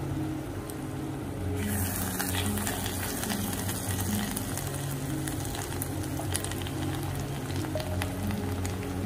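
Carrot and beetroot halwa sizzling in hot oil in a pan, with a spatula clicking and scraping as it is stirred. The sizzle grows louder about a second and a half in. Soft background music plays under it.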